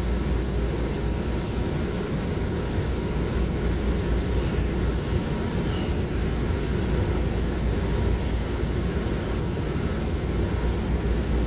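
MBTA Green Line light-rail car in motion, heard from inside the car: a steady low rumble of the train running along the track, with no pauses or sudden noises.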